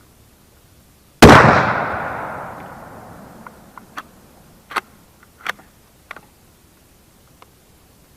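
A single shotgun shot about a second in, echoing away over the next two seconds or so, followed by a handful of light clicks and knocks.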